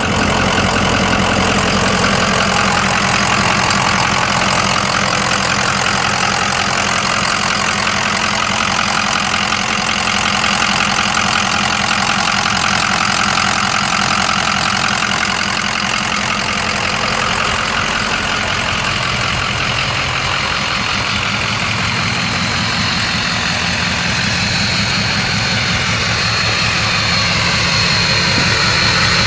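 A 2004 Ford F350 Super Duty's 6.0-litre V8 diesel engine idling steadily. A thin high whine comes in near the end.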